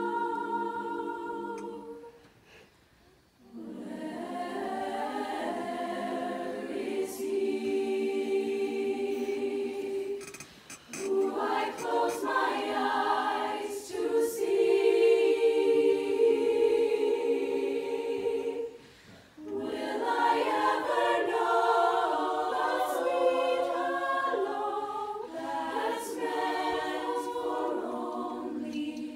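Girls' choir singing held chords in several-part harmony, in phrases with brief breaks between them, the longest about two to three seconds in.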